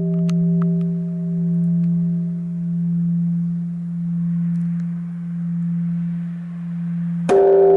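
Japanese Buddhist temple bell (bonshō) ringing out: a deep hum that swells and fades in slow pulses while its higher tones die away. It is struck again near the end, with a sharp attack that brings back the full ring.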